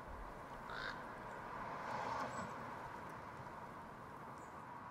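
A single short bird call about a second in, faint, over a steady low hiss.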